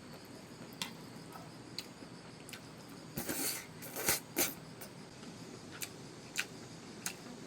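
Scattered light clicks and taps over a faint steady background, with a short rustle a little after three seconds in and two sharper knocks around four seconds in.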